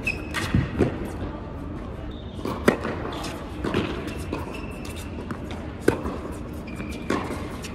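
Tennis rally on an indoor hard court: sharp racquet strikes on the ball a few seconds apart, the loudest about two and a half and six seconds in, with lighter ball bounces and short high sneaker squeaks, all echoing in the hall.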